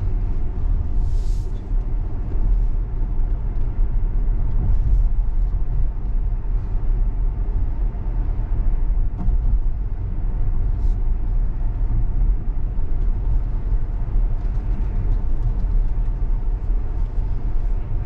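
Steady low road rumble and tyre noise inside the cabin of a Tesla Model X driving on a wet road, with no engine sound because the car is electric. There is a brief hiss about a second in.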